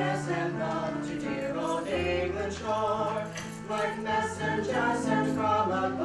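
A small vocal ensemble of two women and a young man singing a slow song together in parts, over steady held low notes.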